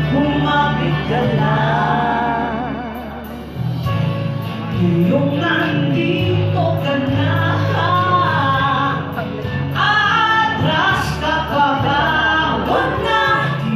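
Two women singing a Filipino worship song as a duet into handheld microphones over amplified accompaniment, with held bass notes and, from a few seconds in, light regular percussion ticks.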